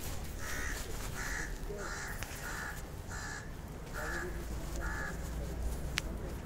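A crow cawing seven times in quick succession, with the calls stopping about five seconds in.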